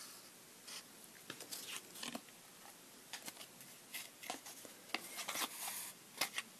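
Faint, intermittent rustling and scratching of a paper card and cotton twine being handled as the twine is wound around the card.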